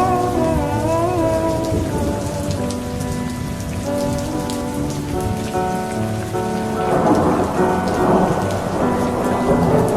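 Steady rain pattering, with thunder, mixed with soft music holding sustained notes. A sung note fades out about a second in, and the rain and thunder swell louder about seven seconds in.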